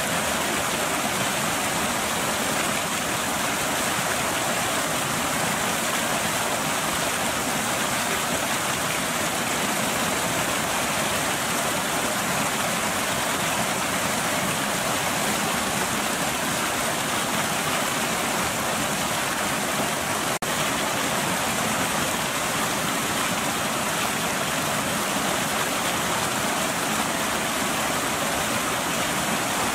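Water pouring over a small weir into a churning, foaming pool: a steady, even rush of falling water.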